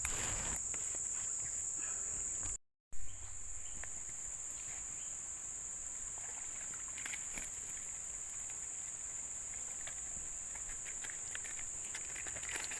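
A steady, high-pitched chorus of insects, briefly cut off for a moment about three seconds in.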